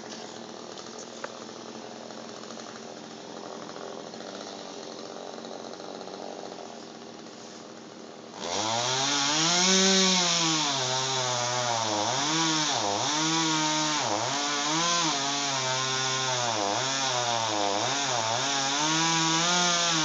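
Chainsaw idling faintly, then about eight seconds in revved up hard as it cuts into the tree trunk. Its pitch repeatedly sags and rises under the load of the cut.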